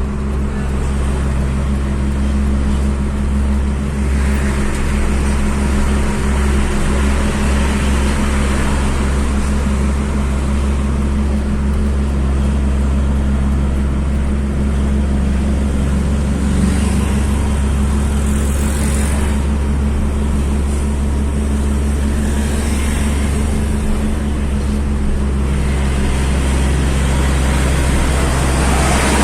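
Steady vehicle engine drone with road and tyre noise while driving on a highway. Passing traffic swells the noise in places.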